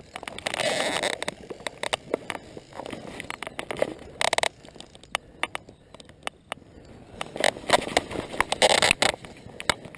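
Fly reel being wound by hand, giving irregular clicking with rustling handling noise, loudest near the end.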